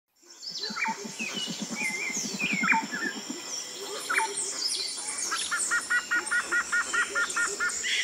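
Several birds calling over one another with short chirps and sharp downward-sliding notes. In the second half one bird gives a fast run of about ten repeated double notes. A low, rapid pulsing call runs through the first three seconds.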